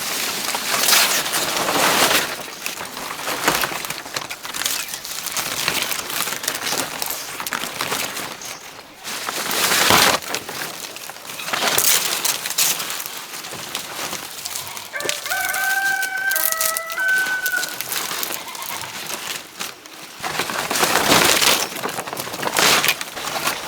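A rooster crows once, a call of several stepped notes lasting about two seconds, starting about fifteen seconds in. Around it run repeated surges of harsh noise, the loudest near the start, about ten seconds in and near the end.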